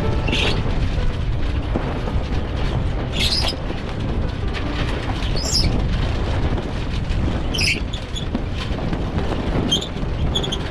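Strong wind buffeting the microphone aboard a small sailboat, a steady low rumble, with short high hissing or chirping sounds about every two seconds.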